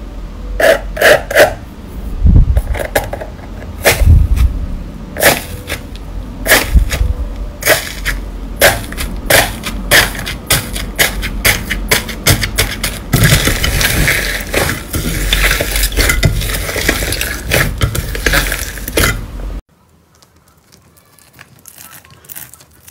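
Fingers pressing into and breaking up the hardened crust of an iceberg-style slime, giving loud, sharp crackles and crunches that grow denser near the end of that stretch. After a sudden drop, faint crackling of a white fluffy slime being handled.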